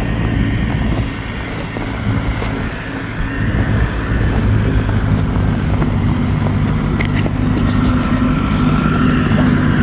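Engine running steadily at a low, even hum. It eases off a little about a second in and picks up again around four seconds.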